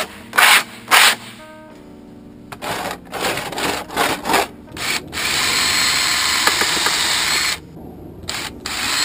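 Cut edges of a home-made radiator shield sheet being deburred: several short rasping strokes, then a cordless drill runs steadily with a faint high whine from about five seconds in, stops briefly, and starts again near the end.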